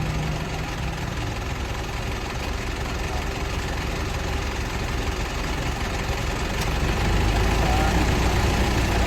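Mitsubishi Montero's engine idling steadily, heard at the front of the vehicle, a little louder from about seven seconds in.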